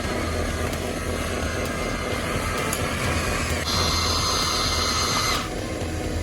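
Electric motors and gears of radio-controlled construction models whining steadily over a low hum, with a louder, higher whine from a little under four seconds in until about five and a half seconds.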